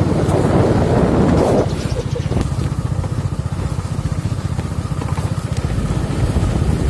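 Motorcycle engine running at a steady cruise on a rough dirt track, its firing pulses even throughout. A louder rushing noise lies over it for the first second and a half.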